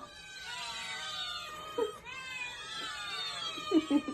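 Cats meowing in answer to a sung prompt: long, drawn-out meows that glide in pitch and overlap one another.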